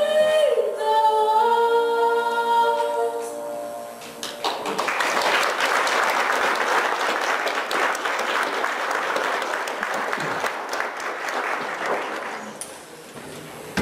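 A woman's solo voice holds the final notes of a song into a microphone, ending about four seconds in. The congregation then applauds for about eight seconds, and the applause fades away near the end.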